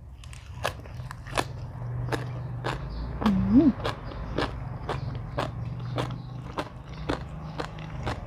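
A person chewing and biting food close to the microphone: a string of wet mouth clicks and crunches, about two a second, with a short rising 'mm' of enjoyment about three seconds in.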